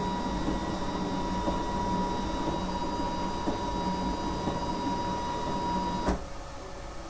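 Stepper motor of a mower unit driving the cutting knife down to its zero height during calibration: a steady high whine over a low hum that stops abruptly with a click about six seconds in.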